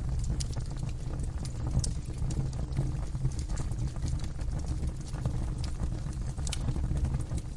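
Wood fire burning in a fireplace: a steady low rumble of the flames with sharp crackles and pops from the burning wood, roughly one a second.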